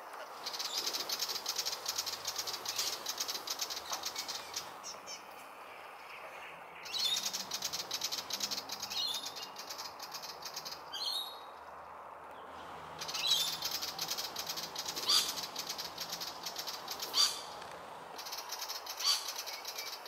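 Willie wagtail scolding: a harsh, rapid chattering rattle in runs of several seconds with short breaks, plus a few short sharp calls near the end. This is its mobbing alarm call, aimed at a laughing kookaburra.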